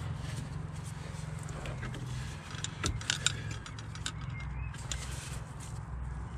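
Scattered light clicks and taps of a hand tool being set onto the Jubilee clip (hose clamp) on a diesel fuel filter, as the clip is about to be tightened. A steady low hum runs underneath.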